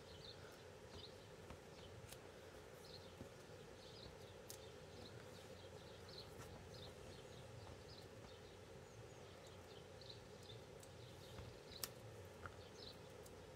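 Near silence: a faint steady room hum with soft, small scratchy ticks about twice a second and a few brief sharper clicks.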